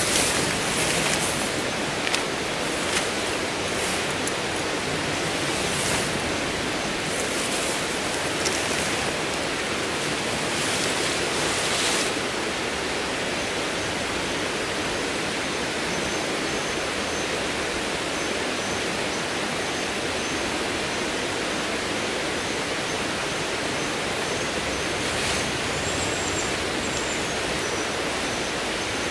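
Nylon tent fabric and pole rustling and clattering in the first twelve seconds as the tent is handled, over a steady rushing noise like running water. A faint, thin high tone comes in near the middle.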